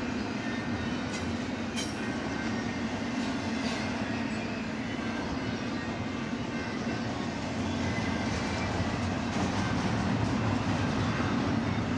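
Freight train cars rolling past on the rails: a steady rumble of steel wheels with a few faint clicks, growing slightly louder near the end.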